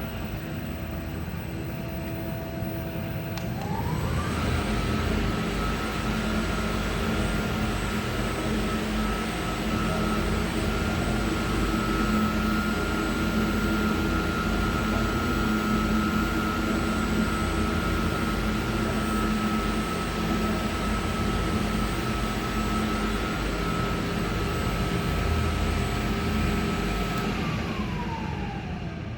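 K+G Wetter M 500 paddle mixer running. The whine of its electric drive rises in pitch about four seconds in as it comes up to speed and gets louder, holds steady, then falls away near the end as it slows down.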